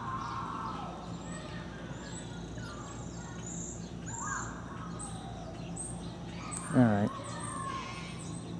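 Birds chirping and calling, many short high chirps and a few lower whistled notes, over a steady low hum.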